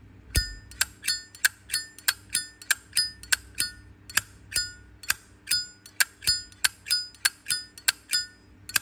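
A Zippo lighter's lid being flicked open and snapped shut over and over, about three sharp metallic clicks a second. Each click carries a short bell-like ring, the 'âm chuông' (bell tone) that the seller points out in this lighter.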